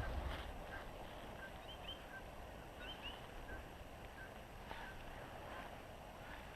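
Small birds chirping, short high calls repeated about every half second, over a faint steady background hiss.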